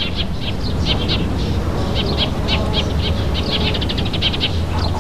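Small birds chirping in quick runs of short, high notes, over a steady low hum.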